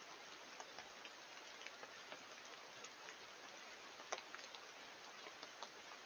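Faint steady hiss with scattered, irregular light ticks, one sharper tick about four seconds in.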